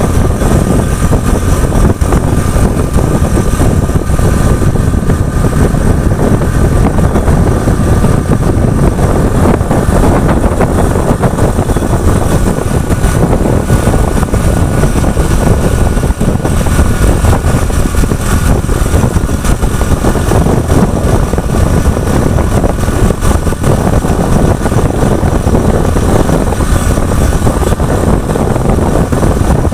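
An engine running loudly and steadily, a low rumble with a faint constant whine above it that holds one pitch.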